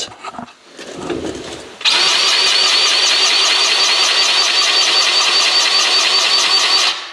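Powered grease gun running with its coupler on a grease fitting, a steady motor whine with a fast, even pulse of the pump as grease is forced into the fitting. It starts abruptly about two seconds in and stops just before the end, after some light handling noise.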